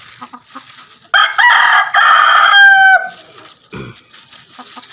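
A rooster crowing once, a loud call of about two seconds that starts about a second in, holds its pitch and drops away at the end.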